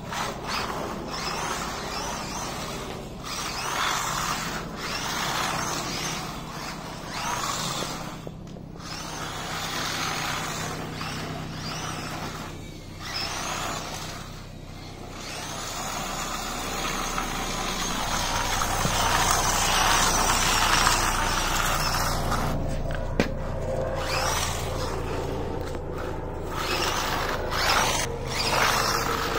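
Electric RC car driving on paving slabs, its motor whining and tyres rushing in repeated bursts of acceleration with short pauses between them, then running more steadily and louder in the second half.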